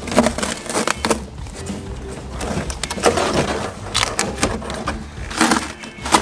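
Background music with intermittent scuffs, rustles and knocks from a car footwell carpet piece being handled and pressed into place among loose wiring.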